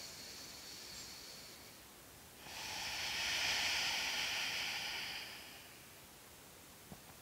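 A woman's slow audible breathing: a faint inhale at the start, then a long exhale of about three seconds beginning about two and a half seconds in.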